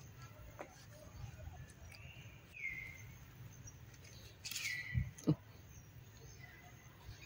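Birds calling: a few short calls that glide down in pitch, the loudest about four and a half seconds in. Two short low thumps follow about five seconds in.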